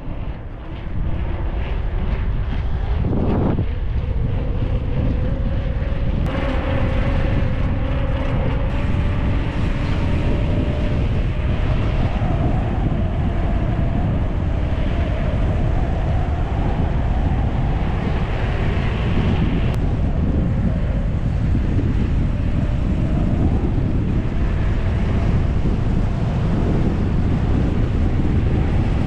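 Wind rushing over the microphone of a bicycle descending fast, with a faint whine that rises slowly in pitch over the first ten seconds as speed builds. There is a short knock about three seconds in.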